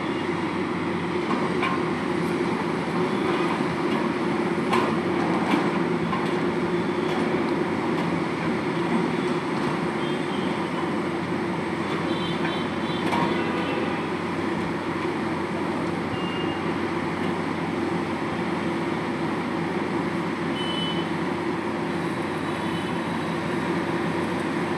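Heavy Sany drilling machine running steadily under load: a continuous low mechanical drone with a few brief knocks.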